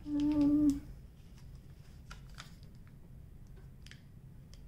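A short hummed "mm" from a woman's voice, then faint crinkles and light taps of a label sticker being peeled and pressed onto a diamond painting canvas.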